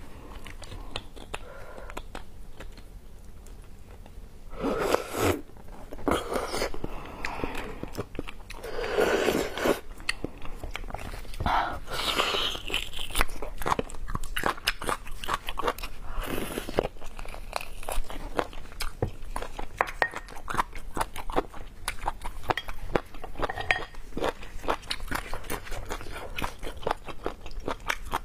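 Close-miked eating sounds of a person chewing and biting braised beef bone marrow and the meat on the bones: a steady stream of wet mouth clicks, with several louder bursts of biting and sucking spread through.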